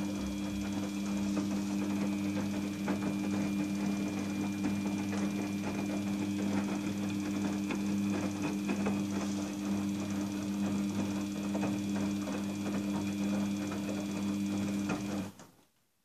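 Daewoo front-loading washing machine running during its wash: a steady motor hum with many light clicks and water sloshing as the drum turns the laundry. It cuts off suddenly about a second before the end.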